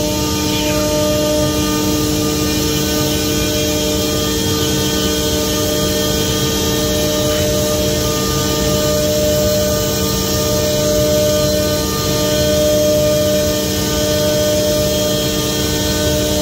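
Omnitech Selexx Mate CNC router running: a loud, constant mechanical drone with several steady humming tones, unchanging throughout.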